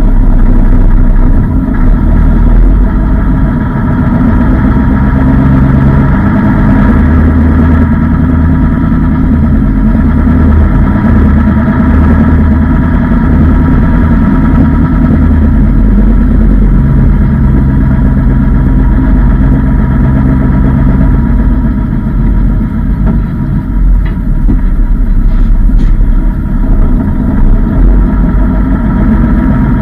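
A truck's diesel engine heard from inside its cab, running loud and steady at low revs as the truck creeps forward at walking pace.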